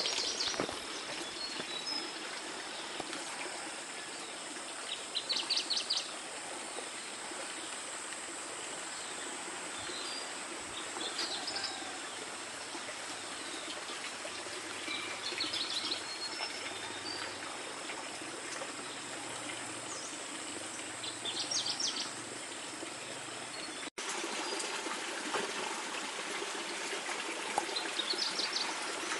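Steady rushing background noise with a short, high, rapidly pulsed chirping call that comes back five times, about every five to six seconds.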